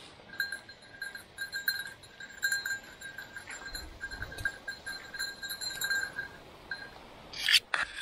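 Bell on a bird dog's collar jingling unevenly as the dog works through the brush, over rustling steps in the undergrowth, with a louder sharp rustle near the end.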